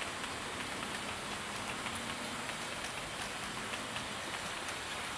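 Hornby Class 71 00 gauge model electric locomotive and its coaches rolling along the track: a steady faint hiss of wheels on rail with light, irregular ticks. The motor is near silent, and the coaches are heard more than the motor.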